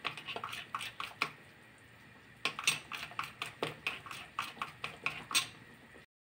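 Metal spoon stirring melted chocolate in a ceramic bowl, clinking against the bowl in quick light taps. The taps pause briefly in the middle and then resume, and the sound cuts off shortly before the end.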